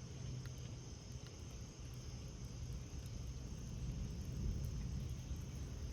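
Faint, even hiss of light rain starting to fall, over steady high-pitched insect trilling and a low rumble of wind, swelling slightly about four seconds in.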